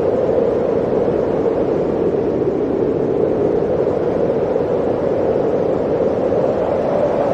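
Blizzard wind blowing steadily, a dense rushing noise whose pitch rises a little near the end.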